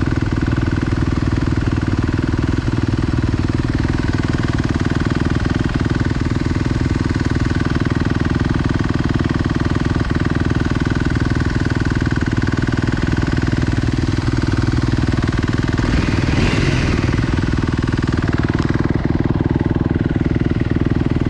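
Honda CRF250L dual-sport motorcycle's single-cylinder engine running steadily at low speed, with no revving.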